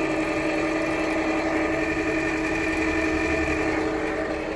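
2019 Jeep Compass engine idling with a steady whine from the accessory belt drive, several even tones held over the engine noise. The mechanic places the noise in the belt and traces it to the alternator pulley.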